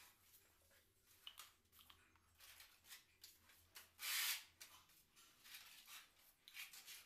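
Putty blade scraping wall putty across a plastered wall in a series of short, faint strokes, with one longer, louder stroke about four seconds in.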